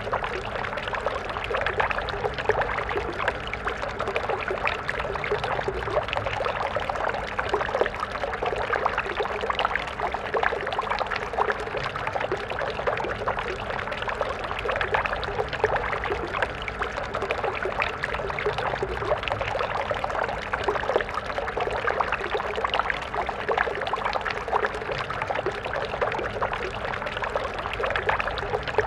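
Water stream flowing and splashing over stones, a steady babbling rush with many small splashes.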